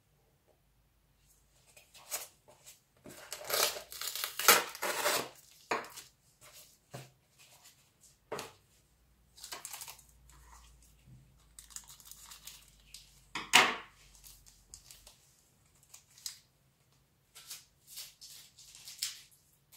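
Cardboard box and its packaging opened by hand: tearing and crinkling in irregular bursts, loudest about four to five seconds in and again around thirteen seconds.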